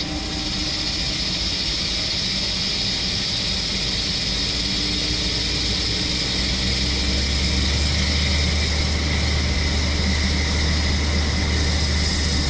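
Puma TT2100 CNC lathe parting off a spinning brass bar with a carbide parting insert: a steady hiss of spindle and cut. A low hum grows louder about halfway through.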